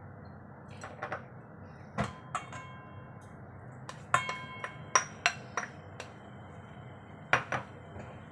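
A spoon and plate knocking against the rim of a stainless steel mixing bowl as chopped carrot is scraped in, about a dozen sharp knocks in irregular clusters, several leaving the bowl briefly ringing.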